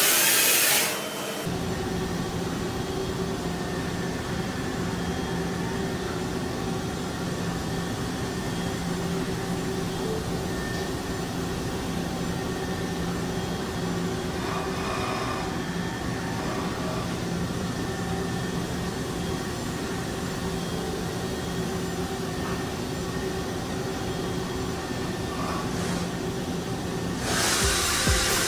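Mazak Integrex e-1600V/10S multi-tasking machine running steadily, a hum with a low drone and a faint high whine. A loud hiss opens the first second or so and comes back near the end.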